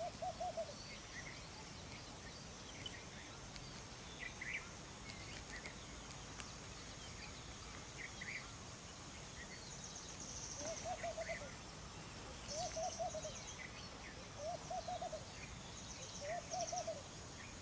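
Wild birds calling in a marsh. One bird gives a short, low call of several quick pulses once at the start, then over and over about every two seconds from about ten seconds in. Scattered higher chirps and short fast trills from other birds come between, over a faint steady hiss.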